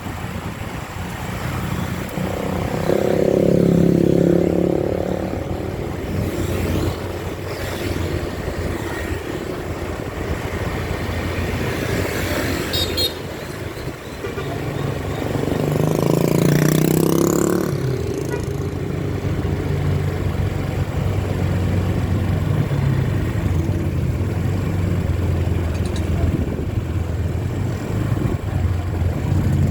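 Buses running past with engines going, sounding multi-tone telolet horns: a stepped horn melody about three seconds in and another about halfway through, the loudest parts.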